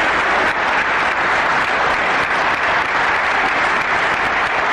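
A large audience applauding steadily, a dense sustained clapping.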